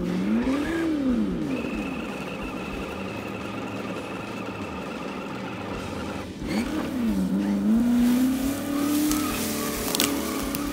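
1/8-scale Double Eagle Land Rover Defender RC crawler's electric motor and gearbox whining, rising and falling in pitch as it is throttled up and down over rocks, twice. A sharp knock comes near the end.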